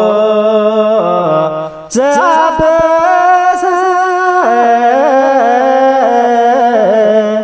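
Ethiopian Orthodox liturgical chant in Ge'ez: a single voice holding long, drawn-out notes that step and slide between pitches, with a short breath about two seconds in.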